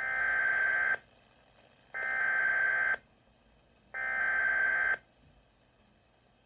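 SAME (Specific Area Message Encoding) emergency alert header, the digital data burst that opens an Emergency Alert System message: three harsh, buzzy bursts of data tones, each about a second long with a second's gap between them.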